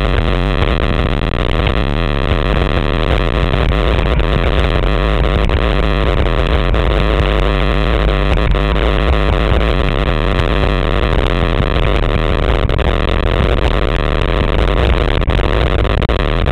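Loud, steady wind noise buffeting the microphone of a handlebar-mounted camera on a road bike descending at speed, heaviest in the low end, with no break.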